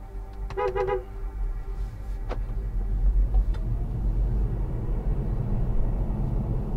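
Car engine and road noise heard from inside the car as it pulls away and gathers speed, the low rumble growing louder after the first second. A short warbling tone sounds about half a second in, and there is a single click a couple of seconds in.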